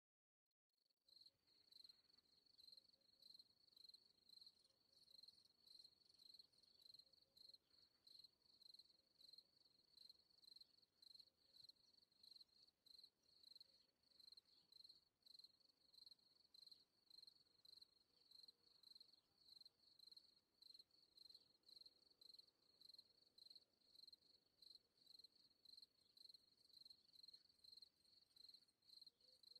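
Faint cricket chirping: a high, even chirp repeating about twice a second, starting just after the beginning out of silence.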